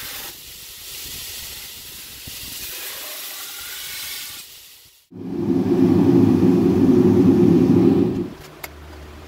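Belt grinder running with a steel sword blade held against the belt, a steady hiss of grinding. About five seconds in it cuts off abruptly, and a gas forge burner runs loud and low for about three seconds, then stops.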